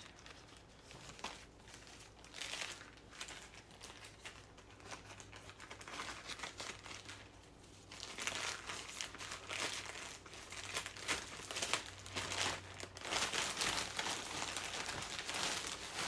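Packaging wrapping of a mail parcel crinkling and rustling as the parcel is opened and unwrapped by hand, busier and louder in the second half.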